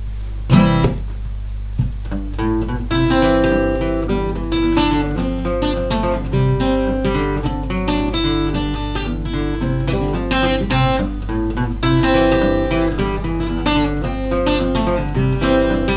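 Acoustic guitar played fingerstyle in ragtime: an alternating thumb bass under a plucked melody. A first loud chord sounds about half a second in, then the piece runs on continuously from about two seconds in, over a steady low hum.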